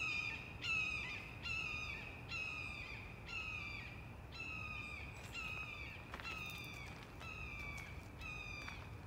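A bird of prey calling from a tree: a steady series of high, slightly falling screams, a little more than one a second, which the uploader took for an eagle.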